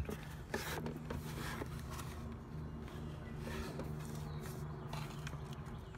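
A low steady hum that fades near the end, with faint rubbing and handling noises from a hand moving along wiring harnesses in an engine bay.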